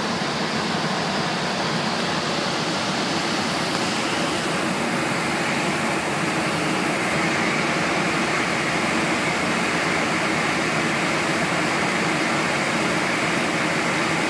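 Steady rushing cabin noise of an airliner in flight: engine and airflow noise heard inside the cabin, growing slightly louder about halfway through.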